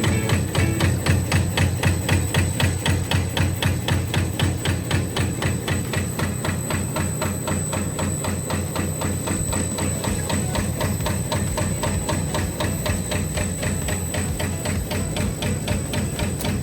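SK-004S CNC carved cutting and punching machine running, its die stamping wooden veneer into coffee stirring sticks in a fast, even rhythm of about five strokes a second.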